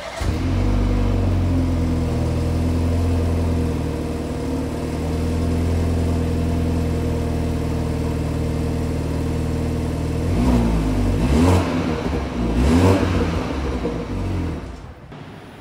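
BMW 430i's 2.0-litre turbocharged four-cylinder engine and exhaust starting up and settling into a steady idle, then revved twice about two-thirds of the way through, each rev rising and falling in pitch, before dropping back to a quieter idle.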